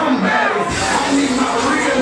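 Hip hop music playing loudly with a heavy bass beat, over a faint crowd.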